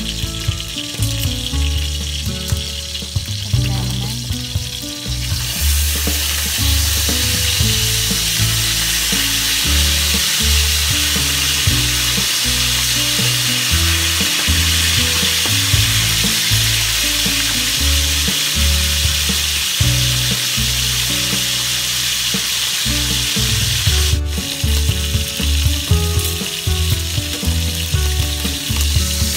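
Bangus (milkfish) belly pieces frying in hot oil in a stainless steel skillet: a steady sizzle that grows louder about five seconds in. Background music with a low bass line plays underneath.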